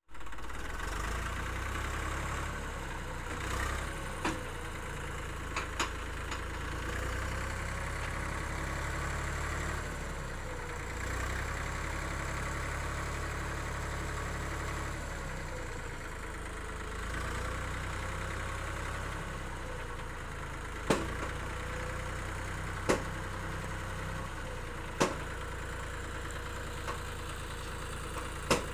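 Eicher 380 tractor's diesel engine running steadily while its hydraulics tip a heavily loaded trolley, with a wavering higher tone above the engine note. Several sharp knocks, mostly in the second half.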